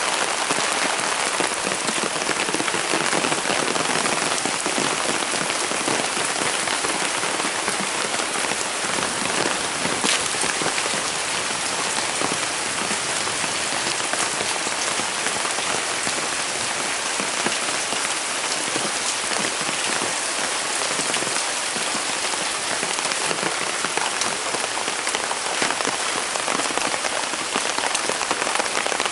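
Heavy rain falling through forest, a loud, steady, dense hiss with many individual drops ticking on leaves and surfaces.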